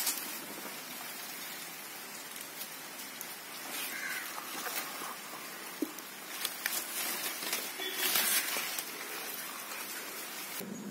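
Irregular rustling and crackling of dry roots and soil as a palm's root ball is handled and set into a plastic pot, over a steady hiss.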